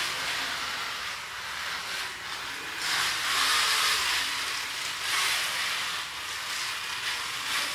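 Small DC gear motors of a four-wheel line-following robot car whirring as it drives, swelling louder a few times as it speeds along and turns at the junctions.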